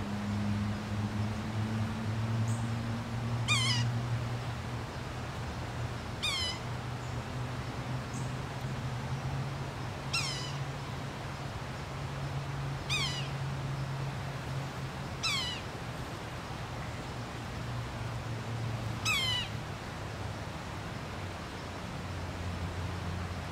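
Yellow-bellied sapsucker giving its mewing call: six short calls, each sliding down in pitch, a few seconds apart, over a low steady hum.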